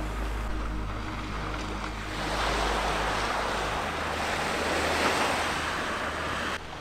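Small waves washing onto a sandy beach, a steady surf hiss that swells about two seconds in. Soft background music with low sustained notes plays underneath.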